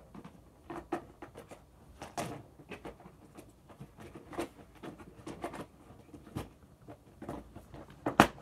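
Irregular small knocks, clicks and clatter of plastic slime containers being handled and set down, with one sharper, louder knock near the end.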